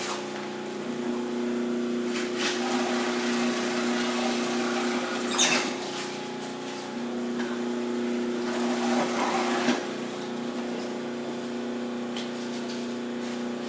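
Commercial continuous-feed food processor running with a steady motor hum while shredding cabbage, with three brief noisy bursts about two and a half, five and a half and nine seconds in as wedges go through the slicing blade.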